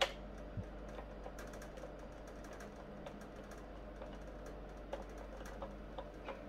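Scattered small clicks and ticks of a screwdriver working the screws in a Commodore Amiga 500 Plus's plastic bottom case, with one sharper click right at the start.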